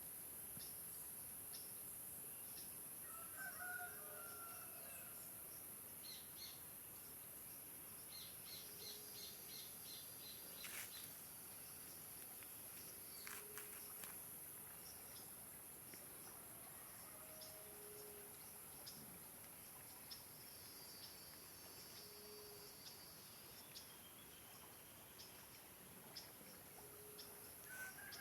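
Faint rural outdoor ambience: a steady high insect hiss with scattered bird chirps, and a distant rooster crowing briefly about three seconds in and again near the end.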